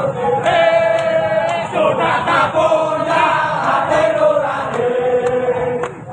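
Crowd of football supporters singing a chant together in unison, many voices holding long notes.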